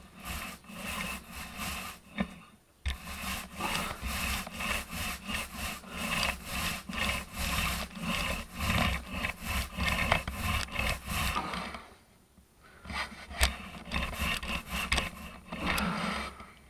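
Paint roller on a wooden extension pole rolling paint across a ceiling in repeated back-and-forth strokes, a rhythmic rubbing. The strokes stop briefly about twelve seconds in, then start again.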